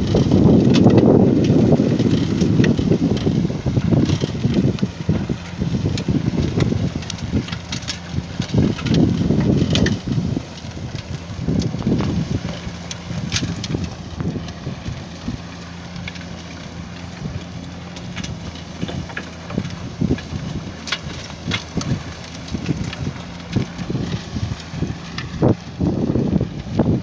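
Truck engine running steadily, with wind buffeting the microphone, heaviest in the first ten seconds, and scattered sharp clicks and knocks.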